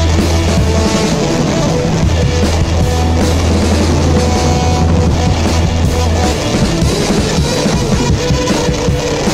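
Background music with a steady drum beat and a held low bass line that drops out about six seconds in.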